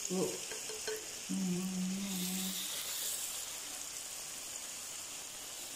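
Battered banana pieces deep-frying in hot oil in a wok: a steady sizzle. A short, steady hum joins it about a second and a half in.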